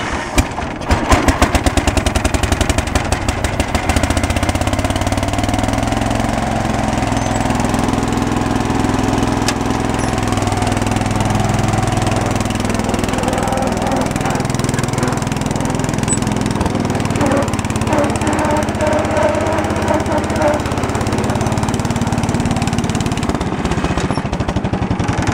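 A 3.5 hp Briggs & Stratton small engine on full choke catches with rapid firing pulses, then runs steadily for about twenty seconds before turning uneven near the end.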